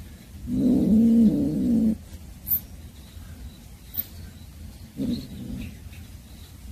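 Domestic tabby cat growling low over a caught mouse: one drawn-out, wavering growl starting about half a second in and lasting over a second, then a shorter one about five seconds in.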